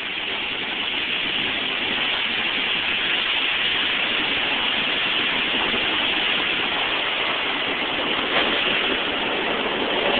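Automatic car-wash water spray hitting the windscreen and body, heard from inside the car: a steady hiss that grows a little louder over the first few seconds.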